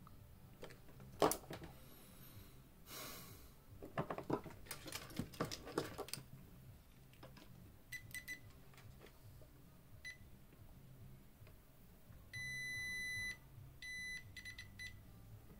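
Sharp clicks and handling rustles, then a high electronic beep. The beep comes as brief blips, then a steady tone held for about a second, then a few broken, stuttering beeps.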